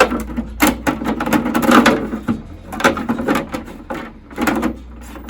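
Plastic parts of an iMac G3 being handled and pushed into place: irregular knocks, clicks and scraping.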